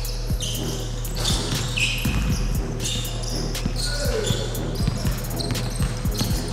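A basketball bouncing repeatedly on a wooden court floor, with short high sneaker squeaks in between and a steady low hum underneath.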